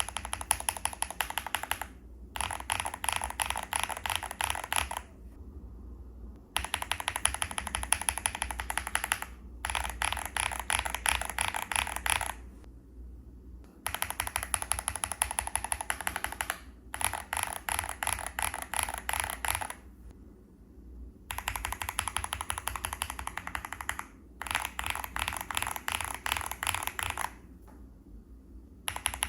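Fast typing on an Evo80 mechanical keyboard with early tactile switches: quick runs of keystroke clacks lasting a few seconds each, broken by short pauses, as one switch after another is tested.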